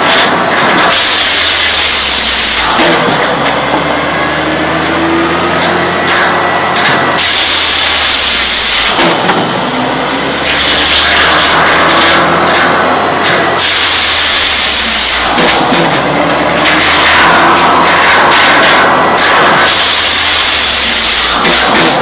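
Firewood processor's large circular saw cutting through redgum hardwood logs, again and again: each cut is a loud hissing rasp a few seconds long. Under it runs the machine's steady engine drone.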